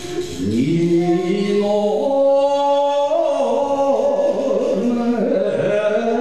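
An older man sings a Japanese folk song (min'yō) solo into a microphone, holding long notes that bend and waver up and down in pitch.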